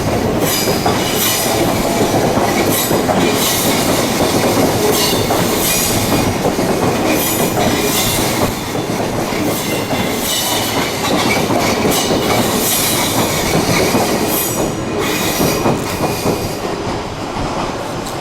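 An Odakyu Line electric train passing close by, its wheels clattering over rail joints in an uneven rhythm. The sound eases slightly near the end.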